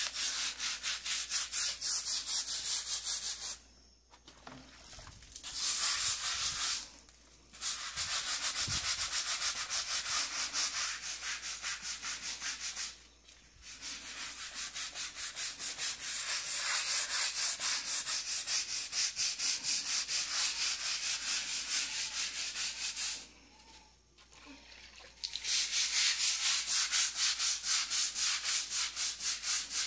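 Small hand scrub brush scrubbing a wet, mildew-covered rendered wall in quick back-and-forth strokes, making a rasping hiss. The scrubbing stops briefly every few seconds, then starts again.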